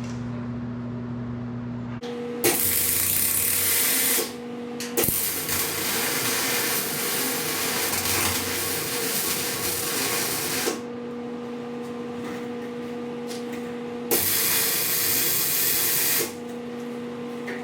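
Electric welder arc, three runs of steady crackling hiss of a few seconds each, the longest about five seconds, each starting and stopping sharply, with the welder's steady hum between them.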